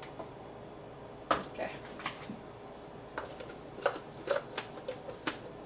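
Plastic single-serve blender cup and its parts being handled on the counter: a series of scattered sharp clicks and knocks.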